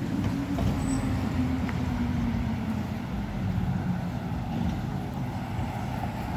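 Road traffic noise: a vehicle's engine running by, steady and low, its tone fading after the first few seconds.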